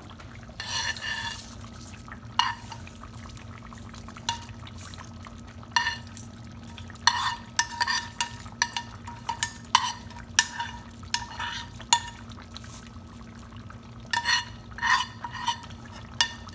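Spoon scraping and knocking against a small pan, emptying fried mustard seeds, shallots and curry leaves into a curry pot: a series of short ringing clinks in irregular clusters, over a steady low hum.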